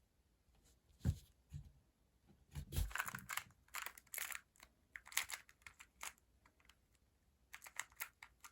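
A magnetized GoCube smart Rubik's cube being turned quickly in a speedsolve: its plastic layers click and clack in irregular bursts of turns with short pauses.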